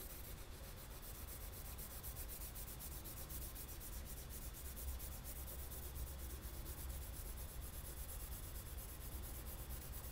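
Graphite pencil scratching across sketchbook paper in rapid, even back-and-forth shading strokes.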